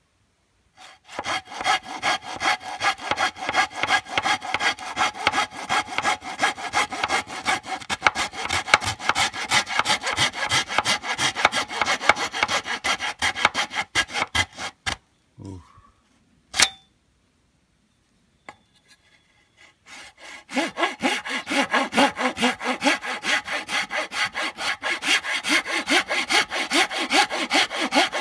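A hand saw cuts through a standing green bamboo culm in quick, even back-and-forth strokes, with a ringing note from the blade. The sawing stops for several seconds a little past the middle, leaving a few knocks and scrapes, then starts again about three quarters of the way through.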